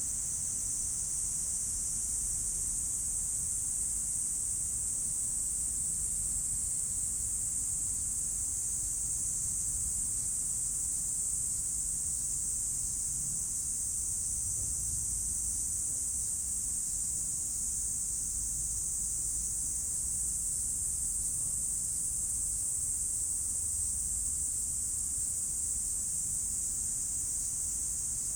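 Steady, unbroken high-pitched hiss of a summer insect chorus, with a faint low rumble underneath.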